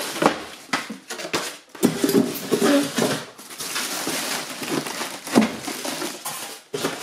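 Clear plastic wrap crinkling and rustling as it is pulled and stretched off a new inkjet printer, with irregular crackles and a few louder snaps.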